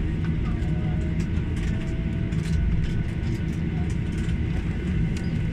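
Cabin noise inside a Boeing 737-800 taxiing: the steady low rumble of its CFM56 engines at taxi power, with faint light rattles over it.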